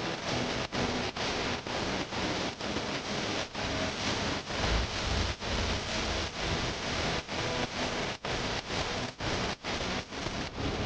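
Steady hissing noise, cut by brief dropouts about twice a second.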